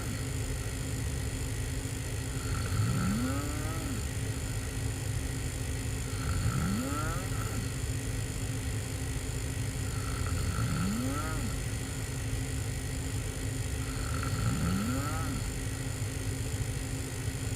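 A person snoring hard, open-mouthed while lying on their back: four snores about four seconds apart, each rising in pitch over about a second before breaking off.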